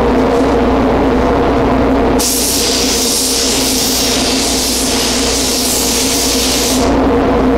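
A hand-held compressed-air gun on an air hose hisses in one long steady blast, starting about two seconds in and stopping near the end, as it is worked over an automotive bumper cover during a paint repair. A constant low hum runs underneath.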